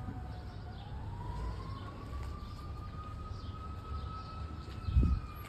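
An emergency-vehicle siren wailing slowly: its pitch dips, rises over a few seconds, holds, then starts to fall again, over a low steady rumble. A short low thump comes near the end.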